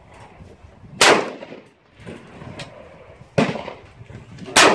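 Three AR-15 rifle shots with a short echo after each: one about a second in, then two more in quicker succession near the end.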